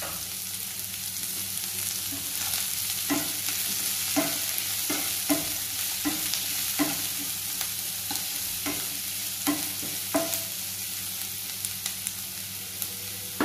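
Diced potato and onion sizzling in oil in a frying pan while a spatula stirs them, knocking and scraping against the pan about once every half second to second.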